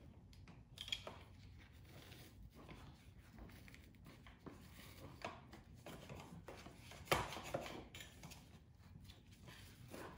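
Faint handling noises of a nylon strap being pulled tight on a car seat strapped to a travel cart: scattered rustling and small clicks, with a sharper click about a second in and a louder knock about seven seconds in.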